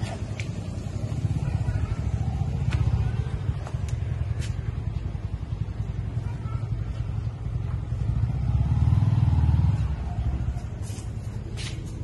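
A motor vehicle engine running, a low rumble that swells twice, with a few light clicks.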